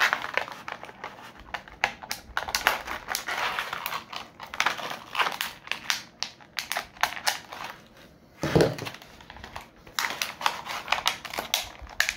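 Plastic packaging and twist ties rustling and crinkling, with many small irregular clicks, as the ties are worked loose from a boxed action figure's arms. A heavier rustle comes about eight and a half seconds in.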